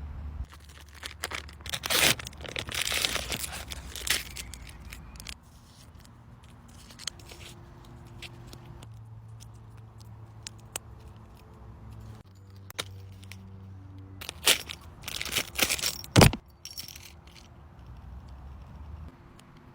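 Paper crinkling and tearing as it is handled, in two longer bursts (one early, one near the end) with scattered sharp clicks between them.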